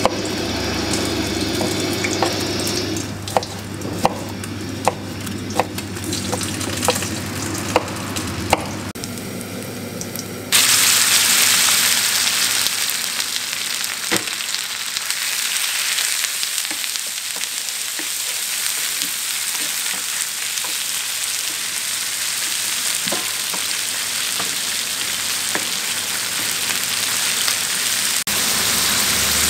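A knife chopping lemon on a plastic cutting board, about a dozen sharp strokes over the first nine seconds. Then, suddenly, cubed lamb sizzling loudly in hot fat in a shallow steel pan over a gas burner, stirred now and then with a wooden spatula.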